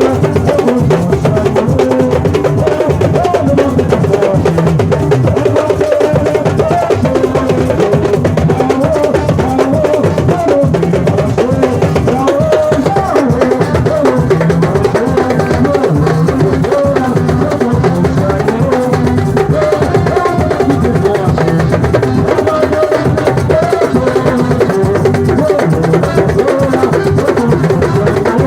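Percussion ensemble playing a steady, unbroken drum groove, with many drums struck together.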